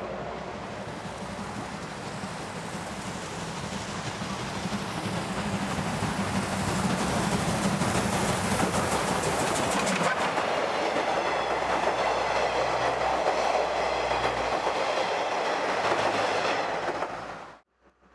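Steam locomotive C58 239 working past at close range with its train, heavy exhaust under load, getting louder as it nears. The coaches' wheels then clatter over the rail joints as they go by. The sound cuts off suddenly near the end.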